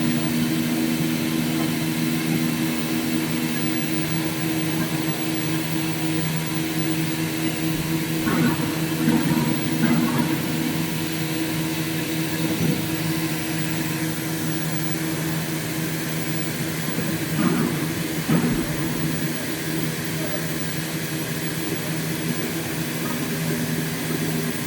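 CNC plate sawing and milling machine running with a steady hum of several fixed tones, with a few brief louder noises about eight to ten seconds in and again around seventeen to eighteen seconds in.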